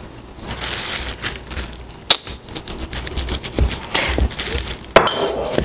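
A knife slitting the plastic film on a package of ground meat, the film crinkling and crackling with many irregular sharp clicks, and a louder snap near the end.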